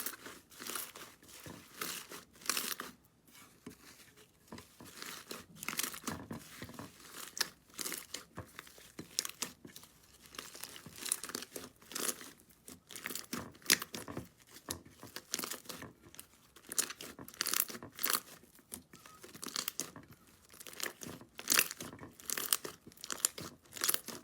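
Slime being squeezed and pressed by hand, giving a run of irregular crackling and popping, with a few sharper pops standing out.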